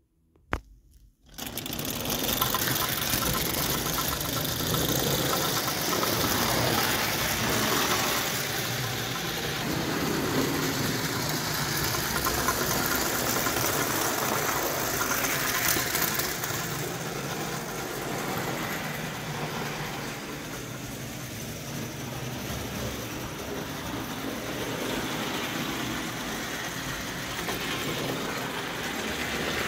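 1909 Bing O gauge live-steam locomotive with an oscillating cylinder running along tinplate track, a fast, steady mechanical chatter with a hiss. It starts suddenly about a second in, just after a single click.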